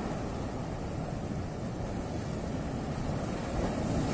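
Sea waves washing against a rocky shore, with wind rumbling on the microphone. Near the end a wave breaks and splashes against the rocks, a little louder.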